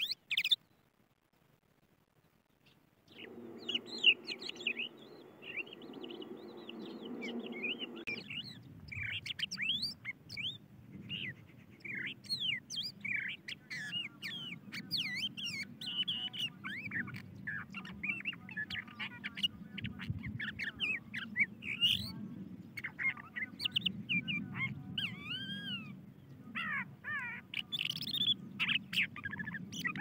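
Crested lark song: a long, unbroken run of quick, varied chirps and slurred whistles, beginning about three seconds in after a short silence. A low steady hum lies under the first few seconds of song and stops about eight seconds in.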